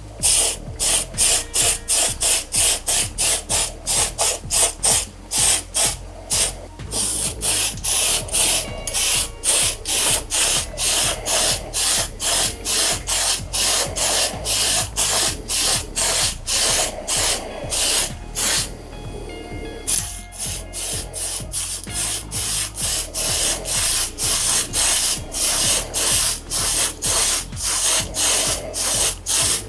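Aerosol spray paint can (Mr. Color spray) spraying in short rapid bursts, about two a second, with a brief pause about two-thirds of the way through, laying a second coat of paint on metal panels.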